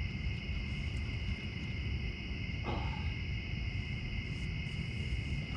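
Steady chorus of night insects, a constant high chirring, over a low rumbling background noise. A brief falling sound comes about halfway through.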